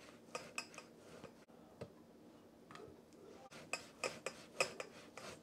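Faint clicks and light metal clinks of a hand potato ricer pressing potatoes over a stainless steel bowl, with a quick run of clicks about four seconds in.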